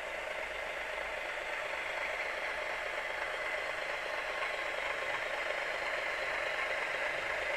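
Bachmann Graham Farish N gauge Class 108 DMU model running on the layout. Its DCC sound decoder plays diesel railcar engine sound through the model's small speaker, mixed with the rattle and whir of the model's mechanism on the track. It grows slightly louder as the unit comes closer.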